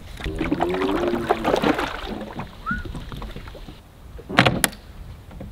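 Lake water splashing and sloshing around a foam surfboard as it is pushed off a wooden dock and climbed onto, with a brief low hum in the first couple of seconds. Two sharp knocks come about four and a half seconds in, as the board bumps against the dock.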